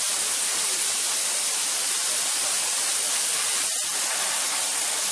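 Airbrush spraying a clear coat of Pledge Future thinned with alcohol: a steady hiss of air.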